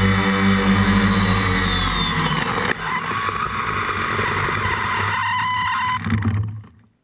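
DJI Phantom 2 quadcopter's motors and propellers humming steadily in low flight, then a sharp knock about two and a half seconds in as it comes down into the grass. The sound turns rougher and noisier as it sits in the grass, then dies away near the end as the motors stop.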